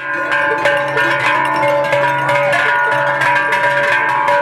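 Many cowbells rung by spectators, a dense continuous clanging with steady ringing tones.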